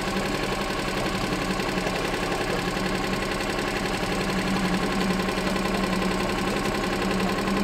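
Boat's outboard motor running steadily at trolling speed, a constant low drone.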